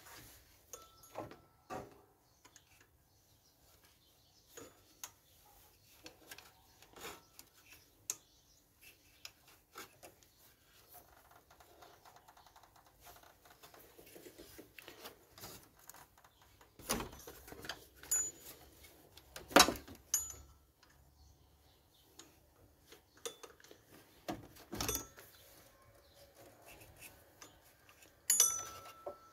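Scattered clicks, taps and light rubbing as hands work a small tool around the power steering pump's belt and pulley in a car engine bay. The sharpest knock comes about two-thirds of the way through.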